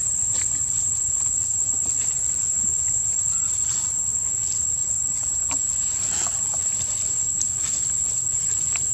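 Insects droning steadily in one unbroken high-pitched tone, with a few faint rustles and ticks.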